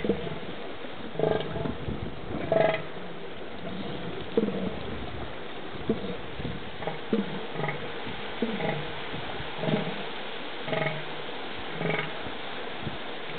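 Two northern elephant seal bulls trading threat calls as they square off: short pulsed calls repeated about once a second, over a steady background hiss.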